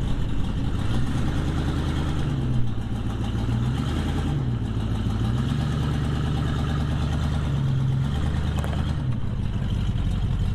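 A 1976 Chevy K10 pickup's engine running as the truck backs out in reverse. The engine note rises and falls several times as the throttle is worked, with one sharp knock about two and a half seconds in.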